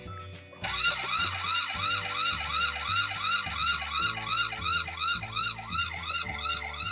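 Fast Lane Action Wheels police truck toy's electronic siren, set off by its button: a fast wailing siren that rises and falls about three times a second, starting about half a second in.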